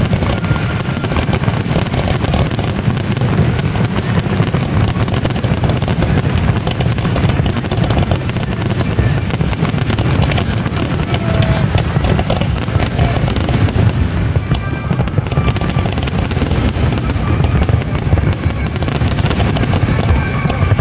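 New Year fireworks display going off in a continuous barrage: rapid, overlapping bangs and crackles over a steady low rumble, with no pause.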